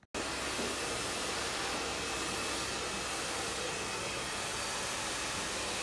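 Hair dryer running steadily with an even rushing hiss.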